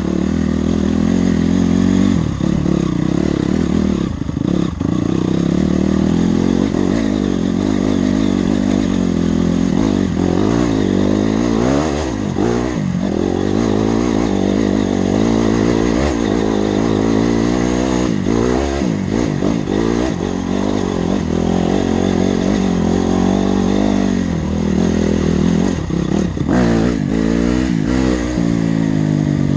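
Honda CRF single-cylinder four-stroke dirt bike being ridden off-road, the engine revving up and dropping back again and again as the throttle opens and closes through the gears.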